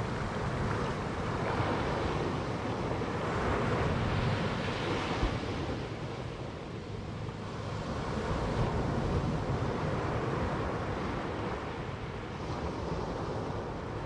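Ocean surf washing up a sand beach in shallow whitewater and draining back, in two surges: one through the first few seconds and another about eight seconds in, easing between.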